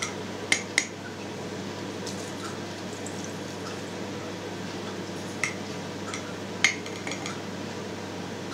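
Metal tablespoons clinking against each other and the stainless-steel vat while salt is measured out over the cheese curd. There are a few sharp, ringing clinks, two soon after the start and two more later on, over a steady low hum.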